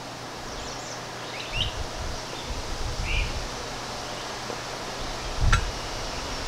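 Outdoor background noise with a few short bird chirps, dull low rumbles about one and a half to three and a half seconds in, and a single sharp click about five and a half seconds in.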